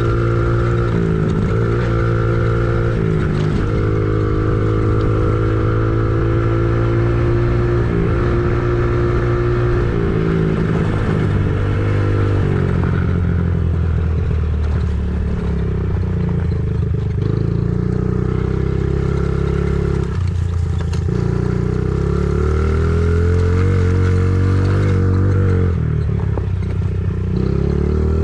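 A motor engine running steadily, its speed stepping up and down several times and rising again near the end.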